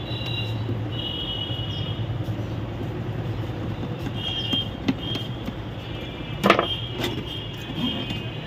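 Plastic printer casing knocking and clattering as it is handled and turned over, with a sharp knock about six and a half seconds in. Underneath runs a steady low hum with short high squeaky tones on and off.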